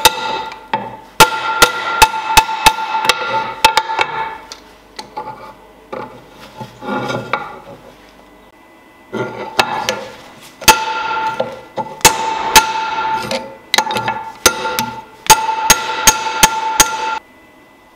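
A hand hammer striking a hot knife blank of leaf-spring steel on a steel bar used as an anvil. The blows come in quick runs, about two to three a second, each a sharp metallic clang that rings, with short pauses between runs.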